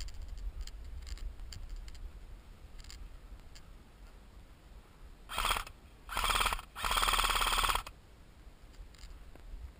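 Airsoft electric gun firing three full-auto bursts in quick succession, each a fast, even mechanical rattle, the last one the longest at nearly a second.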